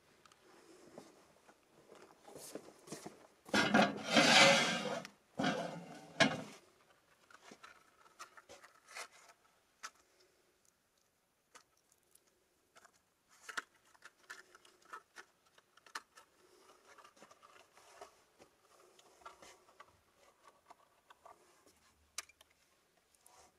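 Rustling and handling noise close to the microphone, loudest for about a second and a half a few seconds in, followed by scattered faint clicks and taps.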